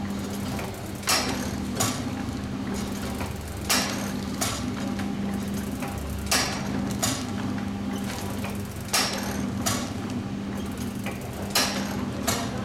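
Pouch packing machine running through its cycle: a sharp mechanical knock followed by a lighter one less than a second later, repeating about every two and a half seconds as the sealing jaws close and open on the pouch film, over a steady motor hum.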